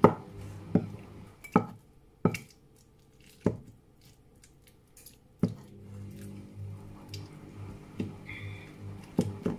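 Avocado chunks being mashed in a bowl with a pestle: a series of dull, squishy thumps at uneven intervals, several in quick succession at the start, a pause, then a few more.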